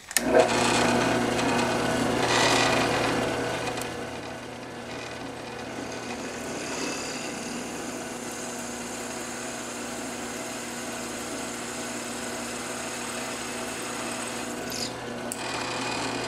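Drill press running, its twist bit cutting into an aluminium block: a steady motor hum under a gritty cutting noise that is loudest in the first few seconds. The cutting noise stops shortly before the end while the motor runs on.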